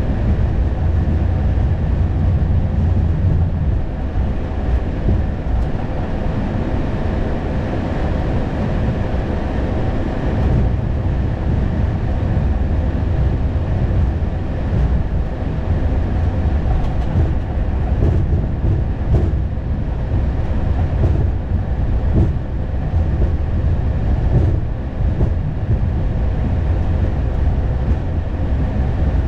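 Steady low rumble of cockpit noise in an Airbus A220, with a few faint steady tones and occasional light knocks.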